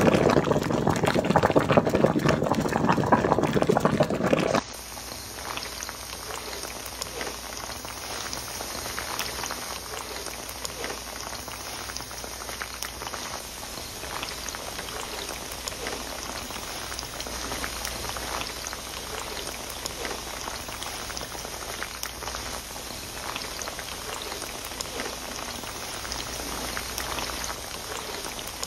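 A pot of beef shank bulalo soup boiling with a loud bubbling. About four and a half seconds in it cuts to tofu cubes deep-frying in oil: a quieter, steady sizzle with many small crackles.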